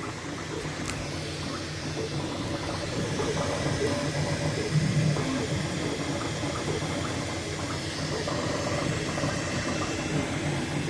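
Several 3D printers running: a steady fan hiss and hum with many short, shifting whirs of stepper motors.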